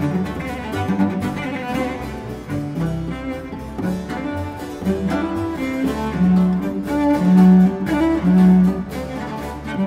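Instrumental background music with long held low notes.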